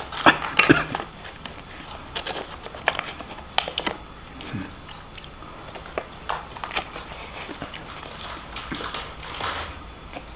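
A person eating fried rice and fried noodles close to the microphone: chewing and biting, with irregular short clicks and crunches.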